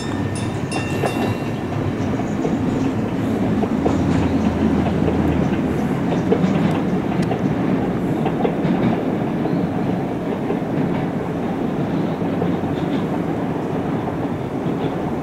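Jōmō Electric Railway train running away from the station: a steady rumble of wheels on rail with clickety-clack over the rail joints. It grows louder over the first few seconds and eases a little near the end.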